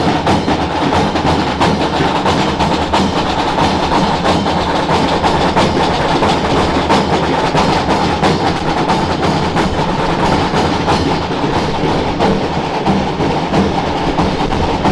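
Festival drums beating a fast, unbroken rhythm of dense, even strokes, the drumming that drives the Calabrian dance of the giants.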